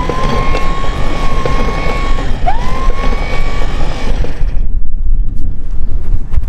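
Electric anchor winch motor run twice with the chain off the gypsy, each time a whine that rises quickly and then holds steady, first for about two seconds, then for about a second and a half. The winch's shaft is bent, according to the owner. A steady low rumble runs underneath.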